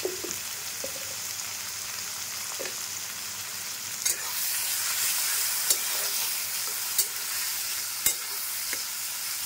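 Chopped tomatoes, onions and spices sizzling in oil in a kadai, being fried down until the tomatoes soften for a dal tempering. About four seconds in, stirring starts: the sizzle grows louder, and the spatula knocks against the pan several times.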